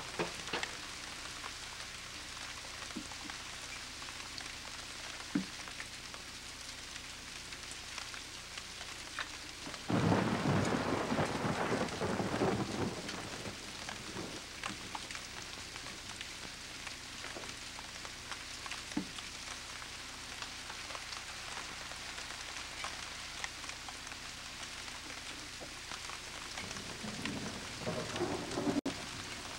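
Steady rain hiss, with a rumble of thunder about ten seconds in that lasts some three seconds, and a shorter, fainter rumble near the end.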